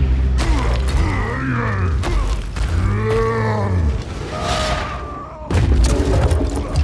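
Fantasy battle sound mix: two long, deep creature roars that rise and fall in pitch over a low rumble of booms, followed by a burst of heavy crashes near the end.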